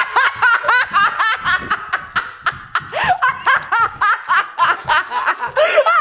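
Excited, high-pitched laughter and shrieking in quick bursts several times a second, the reaction to a team's win being announced.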